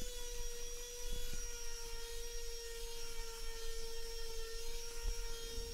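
Small electric palm sander running at a steady speed with a constant whine, its pad sanding the edges of two clamped MDF panels.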